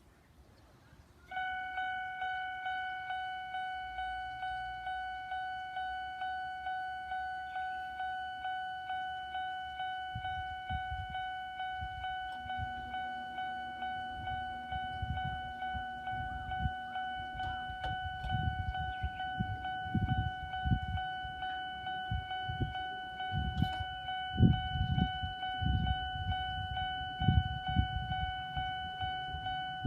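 Single-tone level-crossing warning bell on the Toyohashi Railway starting about a second in and ringing steadily at about two strikes a second, the signal that a train is approaching. From about ten seconds in a low rumble with irregular thumps builds and grows louder, the sound of the approaching train.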